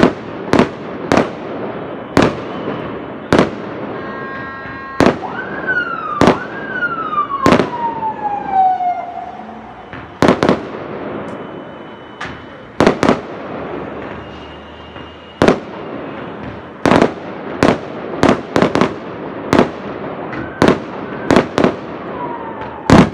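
Aerial fireworks shells bursting overhead in loud, sharp bangs, irregularly about once a second, over a steady crackle. From about five seconds in, a whistling tone rises briefly and then falls slowly for about three seconds.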